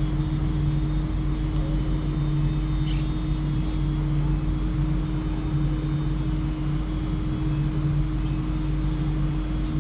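A steady low mechanical hum with a constant pitch, and a single short click about three seconds in.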